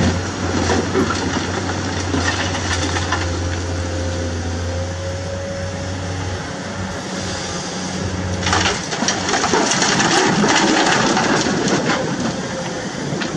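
Electric motors of a radio-controlled toy excavator whirring as it moves its boom and bucket in shallow water. The steady hum drops out about nine seconds in, leaving a rougher, noisier sound.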